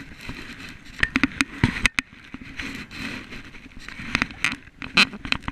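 Paddling an Intex Explorer inflatable kayak: paddle blades splashing through the water with dripping, and many irregular sharp clicks and knocks, the loudest about five seconds in.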